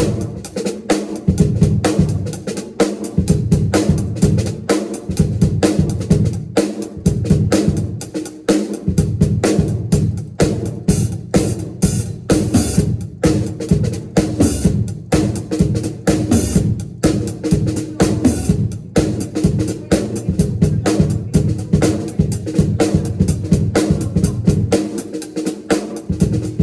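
Full drum kit played fast and busy, with bass drum, snare and rimshot hits in dense runs of strokes, over held low notes.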